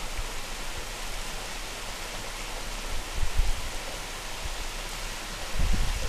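Steady outdoor rushing hiss with a few low thuds, once in the middle and again near the end.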